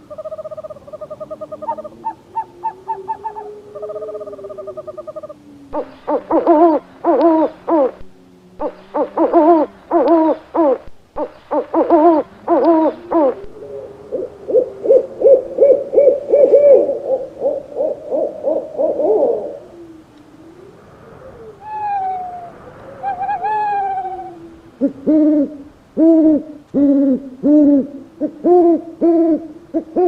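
Owls hooting and calling in a succession of different calls: pulsed steady notes at first, then loud runs of rapid hoots, a long wavering call, two falling notes, and quick repeated hoots near the end.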